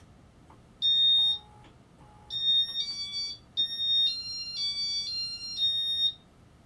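Casablanca Inteli-Touch fan control beeping: a single high electronic tone about a second in, then a run of beeps stepping between several pitches, like a short tune.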